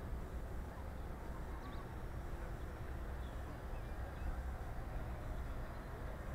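Steady low rumble of wind on the microphone, with the faint whine of a radio-controlled Short S.23 Empire flying boat model's motors growing a little clearer near the end as it comes in low over the water.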